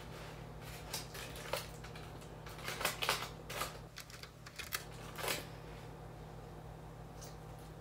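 Aluminium foil crinkling and crisp chicken wings being pulled apart by hand: a run of sharp crackles and clicks that bunch together in the middle and stop about two thirds of the way through.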